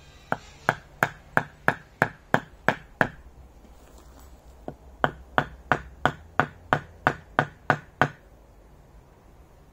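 A short wooden log used as a mallet knocking a wooden stake into the ground: two runs of about ten sharp strikes each, roughly three a second, with a pause of about a second and a half between them.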